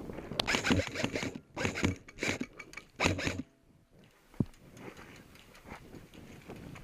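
Rough scraping rustles close to the microphone, in several bursts over the first three and a half seconds, then fainter rustling with one sharp click.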